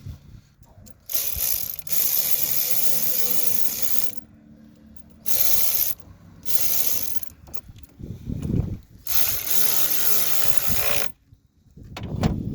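Ratcheting hand tool clicking in four runs of one to three seconds each, working the cable connections on a snowplow solenoid, with a couple of dull knocks in between and near the end.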